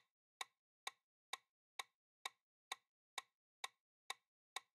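Countdown-timer ticking sound effect: short, evenly spaced ticks, about two a second.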